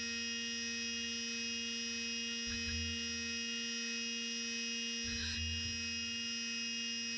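CNC mill cutting brass with a 3/16-inch end mill: a steady, pitched machining whine with a low hum that comes and goes a few times.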